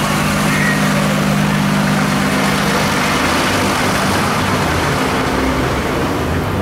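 A parked fire engine idling with a steady low hum that fades out about halfway through, while a pickup truck drives past on the street.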